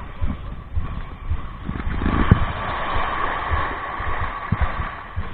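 Wind buffeting the microphone in irregular low rumbles, over small waves lapping and washing at the water's edge; the washing hiss swells for a couple of seconds mid-way.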